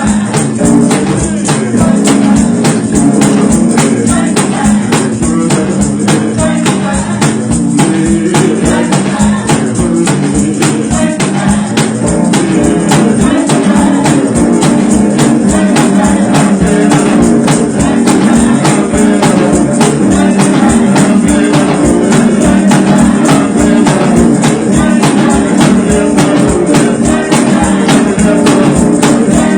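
Gospel music with a steady tambourine beat and singing.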